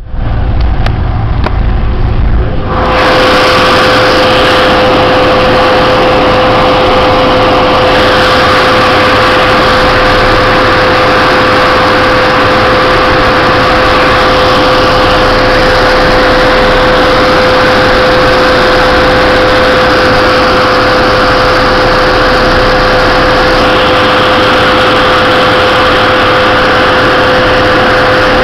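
Snowcat grooming machine running steadily under load as it climbs, its engine and drive loud from the cab with a constant high hum over the rumble. The first few seconds sound muffled and boomy before the sound opens up and holds even.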